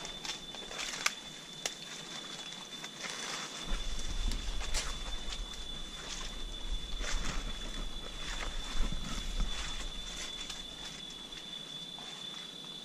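Footsteps through dry leaf litter on a forest trail, with irregular rustles and light snaps, over a steady high-pitched insect drone.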